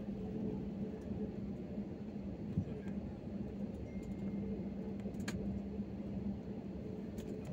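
Cabin noise of a jet airliner decelerating on the runway just after landing, spoilers raised: a steady low engine drone and rumble. There is a single low thud about two and a half seconds in and a sharp click about five seconds in.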